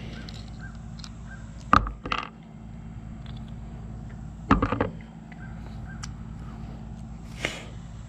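Crow cawing: a pair of caws about two seconds in and another quick run of caws a little past halfway, with a short scuffing noise near the end.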